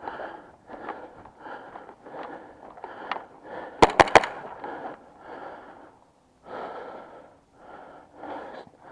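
Three sharp airsoft gun shots in quick succession about four seconds in, over an even rhythm of rustling about twice a second from the player moving.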